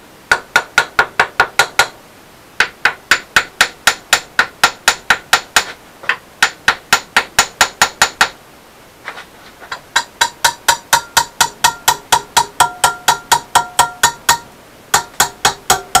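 Small hammer tapping quickly on a stuck metal pump part clamped in a bench vise, about five light ringing strikes a second in four runs with short pauses, to vibrate the seized part loose.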